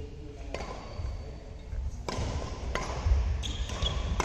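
Badminton rackets striking a shuttlecock during a rally: a few sharp cracks about a second apart, with heavy thuds of players' feet on the court floor.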